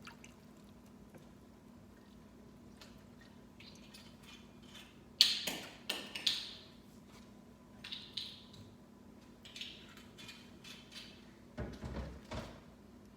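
Soft handling noises from cleaning strawberries by hand: scattered light clicks and a few short wet, squishy rustles, the loudest about five seconds in. Two dull thuds come near the end, over a faint steady hum.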